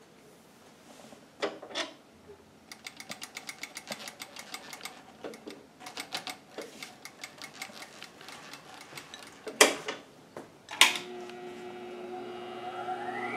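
Mechanism of a Singer 241-12 industrial sewing machine and its clutch motor: clicks and a run of rapid, even ticking from the clutch and pedal linkage, then two loud clicks. About 11 seconds in the clutch motor starts and runs with a steady hum, a rising whine coming in near the end as it spins up.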